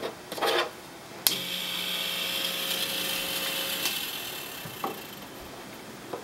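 Fog machine firing: a sharp click, then a steady hiss of fog being pushed out with a faint pump buzz underneath, lasting about two and a half seconds and tapering off. A short rustling scrape comes just before the click.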